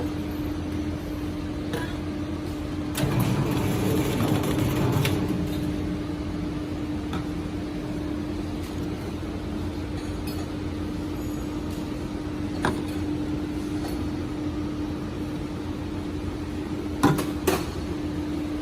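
Can seaming machine running with a steady motor hum, louder for a couple of seconds about three seconds in, with a few sharp clicks, two of them close together near the end.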